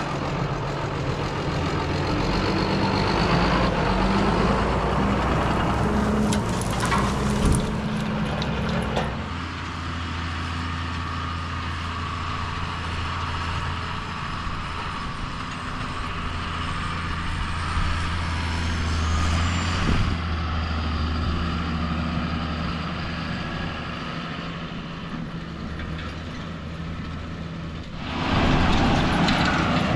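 A John Deere 6630 tractor's diesel engine running steadily as it pulls a direct drill. The sound thins out about nine seconds in and grows louder again near the end.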